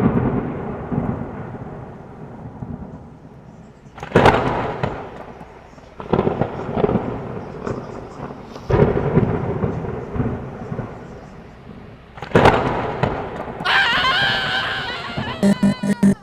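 Thunder-crash sound effects: a sudden crack followed by a fading rumble, striking four times a few seconds apart. Near the end a wavering high-pitched sound comes in, then a pulsing electronic beat starts.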